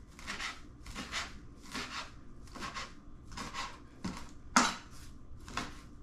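Kitchen knife chopping fresh cilantro on a cutting board: a steady run of short knife strokes, roughly two a second, with one harder chop about two-thirds of the way through.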